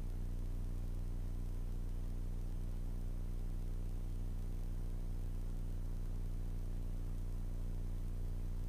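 Steady low drone of a Grumman Tiger's four-cylinder Lycoming engine and propeller in cruise flight, with an even hiss over it.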